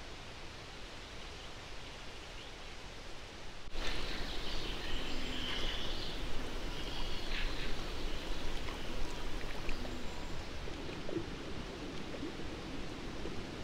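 Steady hiss that changes abruptly, a few seconds in, to open-air ambience by a lake: light rustling and moving air, with a few short, high chirps.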